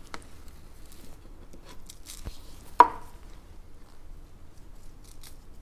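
Gloved hands working potting soil around a succulent in a ceramic pot: soft scattered rustles and small clicks of handling, with one sharp knock nearly three seconds in as a plastic scoop is set down on the table.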